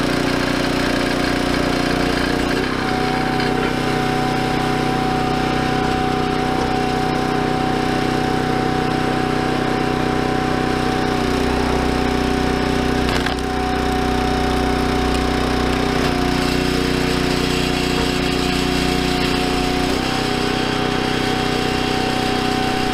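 Ruggedmade 322 log splitter's small gasoline engine running steadily under load, driving its hydraulic pump while the ram splits a log; the engine note shifts a few times as the load changes. A short crack comes about 13 seconds in.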